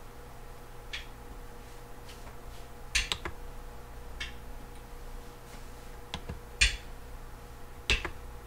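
A handful of sharp knocks and clicks at irregular intervals, the loudest about three seconds in and twice more near the end, over a steady faint electrical hum: hard objects being handled and set down in a kitchen.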